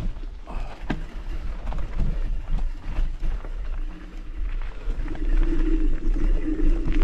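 Mountain bike riding over a rough trail: a constant deep wind rumble on the microphone, with frequent short rattles and knocks from the bike. A steady low hum joins in about five seconds in.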